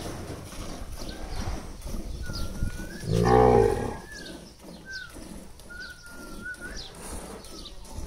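A Gir cow lets out one low moo of about a second, about three seconds in. Under it run faint rhythmic squirts of milk hitting a steel pail as the cow is milked by hand.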